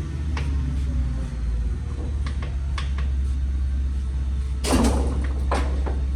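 Large National hollow spindle lathe running with a steady low drone, with scattered clicks and a louder clunk near five seconds in.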